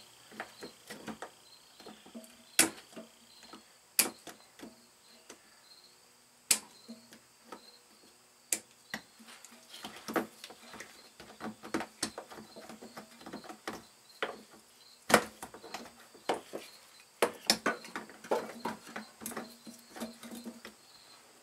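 Irregular sharp clicks and knocks of hands and tools working at a minivan's fuel pump assembly and its lock tab, several dozen scattered unevenly, the sharpest a few single knocks.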